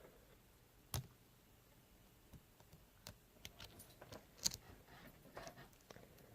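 Faint clicks and scrapes of a lock pick and tension wrench working the pin stacks of an ASSA Ruko 2 lock core, with a sharper click about a second in and another past the middle.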